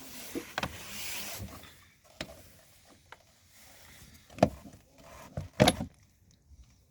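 Spring clips on a Hyundai i40's air filter housing being released and the plastic lid worked open: scraping with several light clicks, then two loud snaps, one about four seconds in and one near the end.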